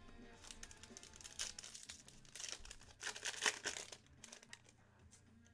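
Foil wrapper of a trading-card pack being torn open and crumpled by hand: a run of crinkling and tearing that is loudest in the middle and stops about four seconds in.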